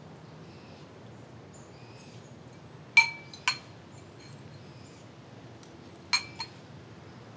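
Spoon clinking against a glazed ceramic cereal bowl: two pairs of short ringing clinks, the first pair about three seconds in and the second near the end.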